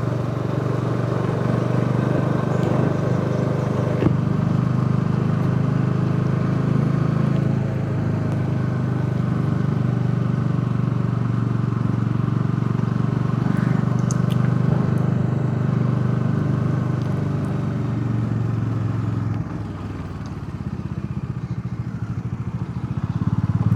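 Motorcycle engine running steadily, easing off briefly near the end and picking up again.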